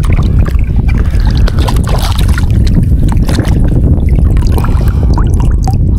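Steady low rumble of wind buffeting the microphone, with scattered small clicks and splashes of water and handling.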